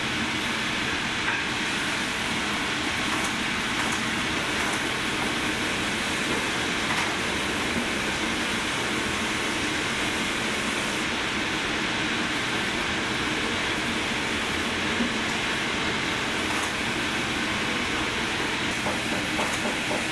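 Boot-finishing machine's sanding belts running steadily, with a boot's black rubber lug sole sanded against them: an even grinding noise with no breaks.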